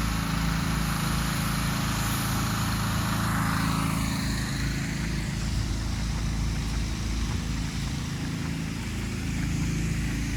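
An engine running steadily close by, with a rushing hiss on top that fades about four seconds in.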